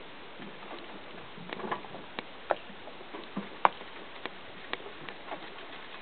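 Light, irregular splashes and drips of water as a dog paws and noses at fish in the shallows: scattered short taps, the sharpest one a little past the middle.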